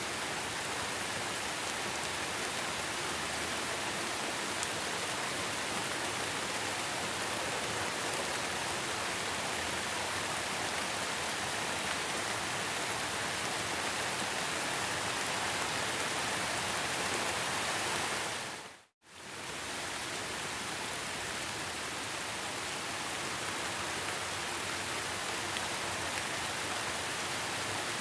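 Heavy rain falling steadily, an even hiss of drops splashing on a surface. About two-thirds of the way through it fades out to silence for about a second and fades back in.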